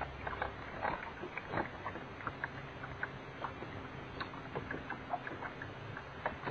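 Small waves lapping and slapping irregularly against a bass boat's hull, with a low steady hum that comes and goes, as from an electric trolling motor.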